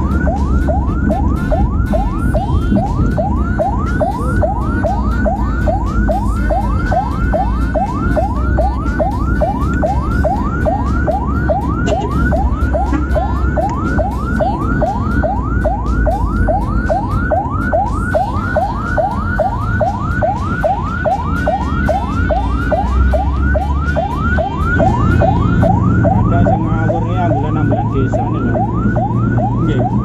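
Ambulance electronic siren in fast yelp mode, sweeping about three times a second without a break, heard loud from inside the ambulance. Engine and road rumble run underneath, and a steady low hum joins about 25 seconds in.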